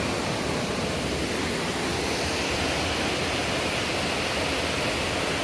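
Steady rush of river rapids running through a rocky ravine.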